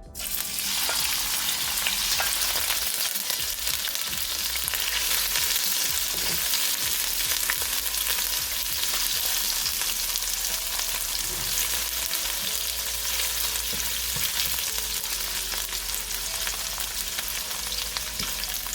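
Tofu strips frying in hot oil in a wok: a steady sizzle that starts suddenly right at the beginning, as the tofu goes into the oil, with faint crackles throughout.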